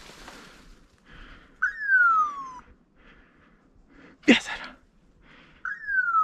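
Two falling whistles, each about a second long, the hunter's whistle signal to his hunting dog. Between them comes a single sharp snap, with faint rustling of brush.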